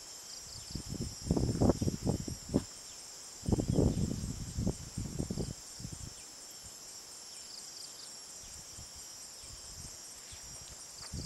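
Steady, high-pitched chorus of insects calling in grassland. Over it come two clusters of loud, close rustling and knocking sounds, about a second in and again from about three and a half seconds to five and a half.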